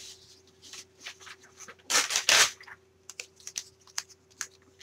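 Paper or tissue being torn and crumpled by hand: a loud rip about two seconds in, then small crackles and taps as it is handled.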